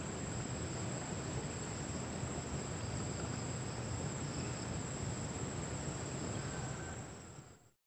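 Insects chirring steadily with a high, unbroken tone over an outdoor hiss and a low rumble; the sound fades out near the end.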